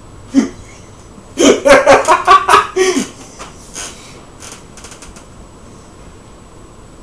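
A man laughing: one short burst about half a second in, then a loud run of quick rhythmic laughs for about a second and a half, trailing off into a few fainter breaths.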